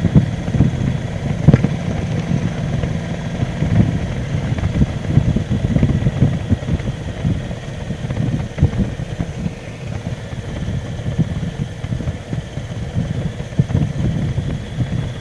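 Harley-Davidson Road King Classic's V-twin engine running with a low, uneven rumble, heard from on the bike, with one sharp knock about a second and a half in.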